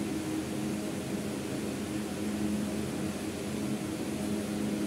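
Steady low hum of room machinery, with a constant drone and no change.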